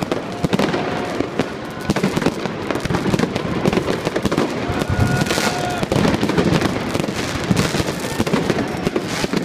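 New Year's fireworks and firecrackers going off all around, a dense, continuous crackle of overlapping bangs and pops. A short held tone sounds about halfway through.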